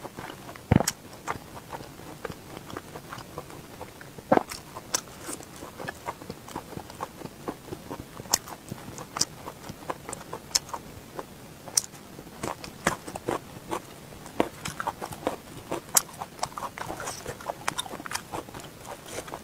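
Close-miked mouth sounds of a person eating soft, sticky braised pork belly: chewing with a stream of irregular wet clicks and smacks, a few of them louder.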